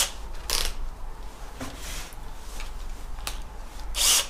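Handling noise from gloved hands working a Bosch GSB 180-LI cordless drill with its motor off: a few short rustles and clicks, with a louder rustle about four seconds in, over a faint low hum.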